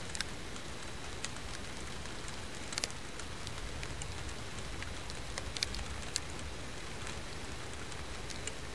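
Steady wind noise on the microphone with a low rumble, broken by scattered sharp ticks.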